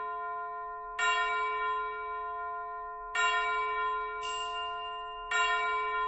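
Background music: bell-like chords struck about every two seconds, three times, each ringing on and slowly fading.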